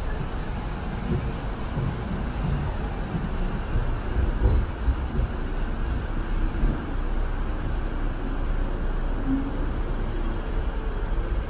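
Hong Kong double-decker electric tram running along its rails, a steady low rumble of wheels and car body heard from the upper deck, with a few louder knocks around the middle.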